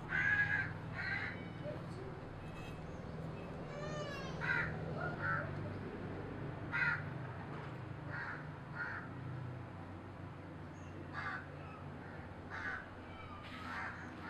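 Birds calling: short, harsh calls repeated irregularly every second or two, with a brief chirping trill about four seconds in, over a steady low hum.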